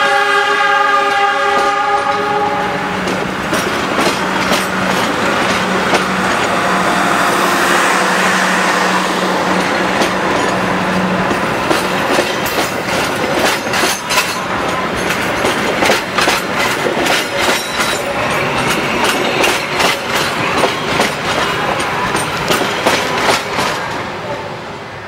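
A train horn sounds a held chord that stops about two seconds in, while passenger carriages roll past close by. Wheels clatter over the rail joints in a rapid irregular run through the second half, dying away near the end as the last carriage clears.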